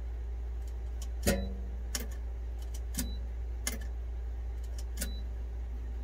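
A series of light clicks and ticks, unevenly spaced about a second apart, over a steady low hum.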